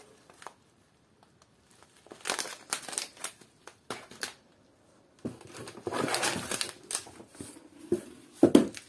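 Plastic cereal-flake pouches crinkling and rustling as they are handled, set down and taken out of a cardboard box. The sound comes in bursts, with a quiet stretch about a second in, a longer run of rustling past the middle and the loudest crinkle near the end.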